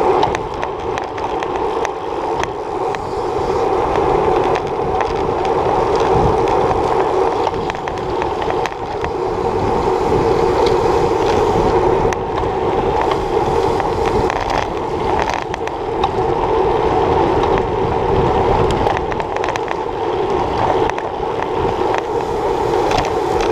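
Steady rush of wind and road noise from a camera mounted on a road racing bicycle riding at speed in a pack, with scattered small knocks and rattles from bumps in the pavement.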